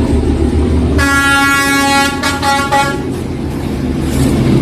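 Train horn blasting over the low rumble of a passing train: one long blast about a second in, then breaking into several quick toots before stopping.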